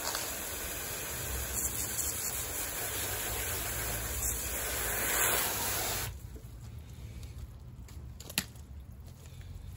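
Garden hose spray nozzle spraying water onto a car's radiator and front bumper, a steady hiss that cuts off about six seconds in. A single sharp click follows near the end.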